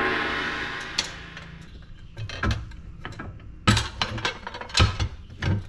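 A metal piece rings with a tone that fades over about a second and a half, then small hand tools and metal parts click and clink in scattered light knocks.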